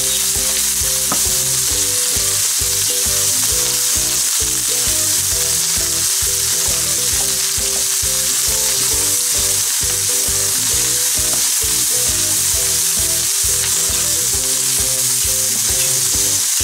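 Chopped onions, bell peppers, jalapeños and green onions sizzling in oil in a nonstick frying pan as they are stirred with a wooden spatula, a steady hiss of vegetables sautéing toward a light golden.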